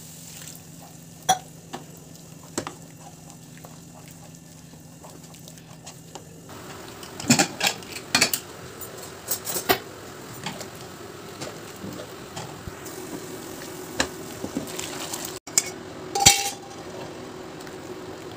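A wooden spatula scraping and knocking against a metal kadhai while thick masala is stirred and cooked, with scattered clatters of pots and pans and some sizzling. A low steady hum under the first six seconds stops abruptly, and the clatter grows denser after that.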